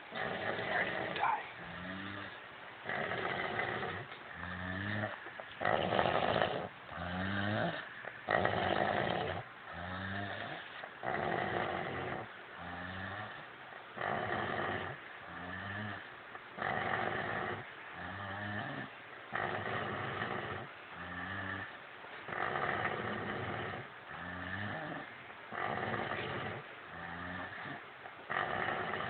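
Two men snoring heavily after drinking, their snores falling into one steady rhythm, a snore about every one and a half seconds, each rising in pitch.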